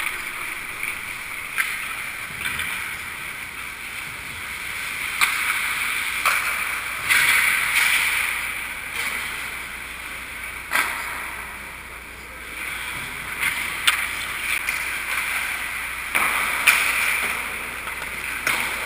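Ice hockey skate blades scraping and carving on the ice, with sharp clacks of sticks and puck now and then.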